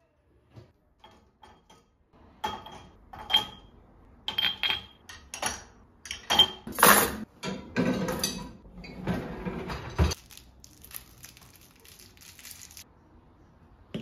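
Glass tea glasses clinking against each other and the counter, several with a short high ring, then louder clattering of dishes and a pan being set into a dishwasher's wire rack.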